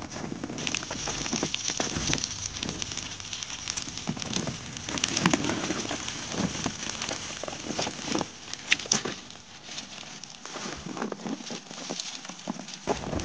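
Small fire of birch bark and kindling crackling, with a dense, irregular spatter of pops and snaps over a hiss as it catches, thinning a little near the end.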